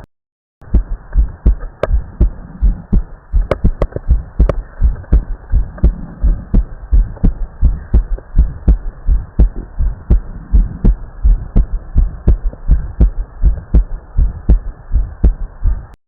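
Human heartbeat heard through a stethoscope on the chest: a steady, regular train of paired lub-dub beats, deep and muffled, starting about half a second in.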